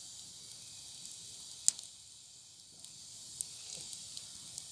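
Small wood campfire crackling, with one sharp pop about a second and a half in and a few fainter ticks later, over a steady high hiss.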